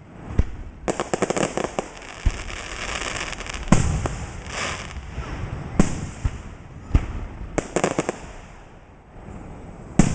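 Fireworks going off: single loud bangs a few seconds apart, with rapid crackling volleys about a second in and again near eight seconds.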